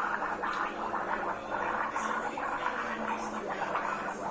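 A person gargling warm salt water: a continuous bubbling rattle of liquid in the throat, with a low steady hum of the voice under it.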